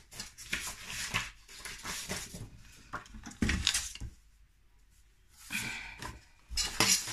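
Sheets of paper rustling and sliding as they are handled and laid on a paper trimmer, in about five short bursts with quiet gaps between them.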